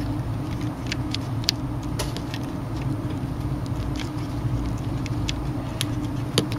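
Steady low hum with a scattering of small sharp clicks from fingers handling a Samsung Galaxy S5 replacement display and pressing its flex-cable connector onto the phone's board.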